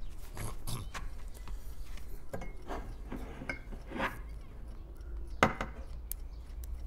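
Scattered light knocks and clinks of small hard objects set down on a wooden table, the sharpest about five and a half seconds in.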